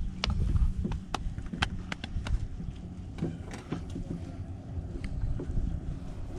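Boat outboard motor running at idle: a steady low rumble with wind on the microphone, and scattered sharp clicks and knocks of gear being handled on the boat.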